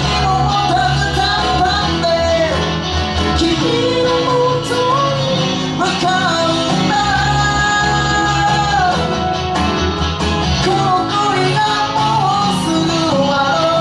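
A small live rock band playing a song: acoustic guitar, electric guitar and electric bass together, with a steady bass line underneath and a lead melody on top.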